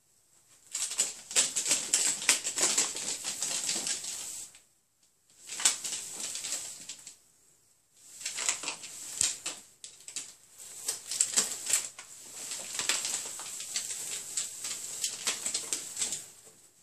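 Flexible aluminium-foil ducting crinkling and rattling as ferrets scramble through it and shove it across the carpet. It comes in five stretches of dense crackling, one to four seconds each, with short pauses between.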